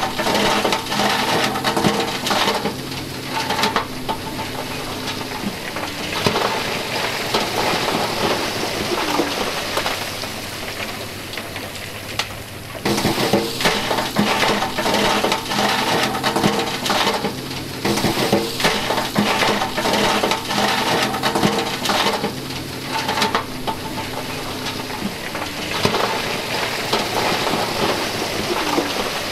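Diesel dump truck's engine running while a load of broken stone slides and clatters out of its raised tipper bed. About thirteen seconds in there is a sudden jump in level, and the same stretch of sound starts over.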